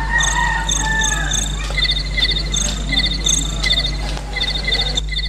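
Insects chirping, cricket-like, in short pulsed chirps about two or three times a second, over a steady low electrical hum. A faint drawn-out call sounds in the first second.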